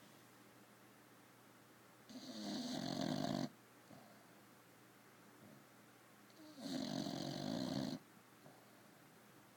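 Bulldog snoring in her sleep: two long snores, each about a second and a half, some four and a half seconds apart, each cutting off suddenly.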